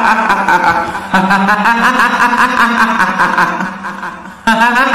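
A woman's high-pitched ghostly cackling laugh, the 'hihihi' of a kuntilanak, in repeated bursts. One burst runs and fades out, a new one starts about a second in, and another starts just before the end.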